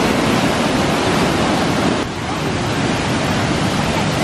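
Small waterfall rushing: a steady, loud wash of falling water, dipping briefly about halfway through.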